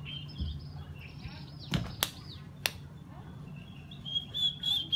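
A bird chirping, with a thin high wavering call near the end, and a few sharp clicks around the middle over a low steady hum.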